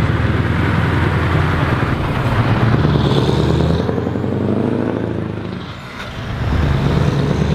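Scania V8 truck engine running loud and deep as the tractor unit hauls a silo tanker trailer past. Its note sinks briefly near the end, then comes back up.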